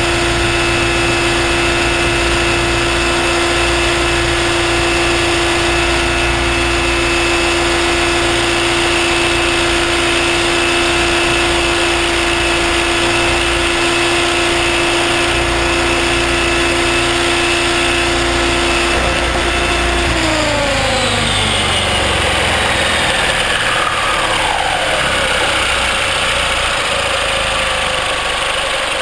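Align T-Rex 600ESP electric RC helicopter heard from its own on-board camera: motor, gears and rotor run with a steady whine. About 20 s in, the pitch starts falling steadily as the rotor spools down after touchdown.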